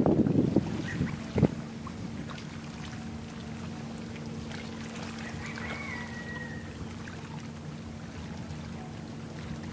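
Small river boat's engine droning steadily as it motors past, a steady low hum with a clear pitch. Wind buffets the microphone at the very start, a single knock comes about a second and a half in, and a faint high whistle sounds near the middle.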